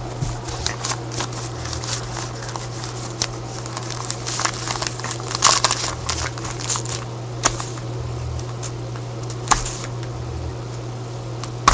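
Foil wrapper of a hockey trading card pack crinkling and rustling as it is torn open and the cards are handled, with irregular crackles and clicks that bunch up about halfway through. A steady low hum runs underneath.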